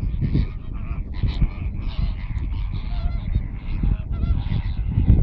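A large flock of greater flamingos calling, a dense, continuous goose-like honking chatter of many overlapping voices, with wind rumbling on the microphone.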